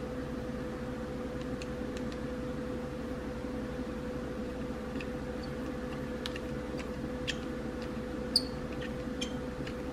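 Square resin diamond-painting drills being pressed onto the canvas with a multi-placer pen: a scattering of light, short clicks, most of them in the second half, over a steady low hum.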